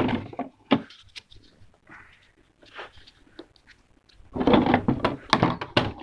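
Small metal socket-set tools being handled: a few scattered clicks, then, about four seconds in, a dense clatter of clicks and knocks lasting under two seconds.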